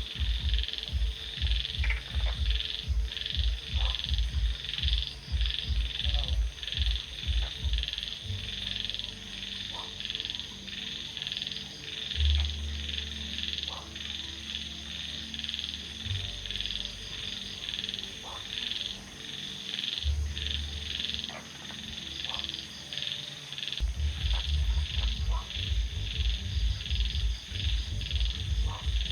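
A dense chorus of frogs croaking in fast pulsing calls. Underneath, a deep rapid pulsing in the first part and again near the end, with a steady deep rumble in between.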